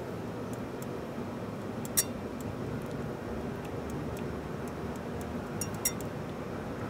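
Wire whisk beating egg yolks in a glass bowl while hot cream is poured in to temper them: scattered light ticks of the wires against the glass, the sharpest about two seconds in and two close together near the end.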